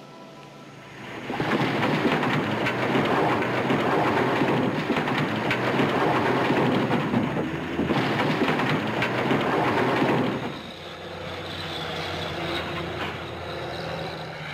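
A load of blasted rock tipped from a dump truck, rattling and rumbling down the rockfill face of a dam. It starts about a second in and lasts some nine seconds, then stops fairly suddenly, leaving a quieter steady engine hum.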